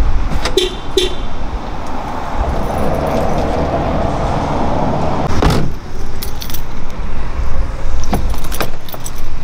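Car foley: keys jangling and the clicks of a car's trunk and door handling, with a sharp knock about five and a half seconds in as the trunk lid shuts, all over a steady low rumble. Two short tones sound near the start.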